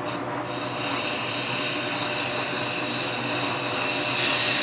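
Propane burning in and blowing out of a carbon fiber pulsejet engine, a steady rushing hiss, as compressed air is blown in to try to start it. A brighter hiss joins about four seconds in, as more air goes in.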